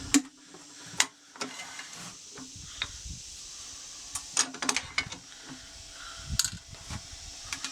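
Sharp metal clicks and knocks as a lathe chuck with pin jaws is set up and tightened on a sanding pad, in a loose series with a cluster of several together about four seconds in. A faint steady hum comes in after about five and a half seconds.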